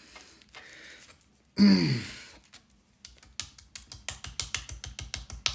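Table knife scraping thick jelly across dry toast in quick repeated strokes, starting about three seconds in and coming several times a second. Just before, there is a single loud short sound whose pitch falls.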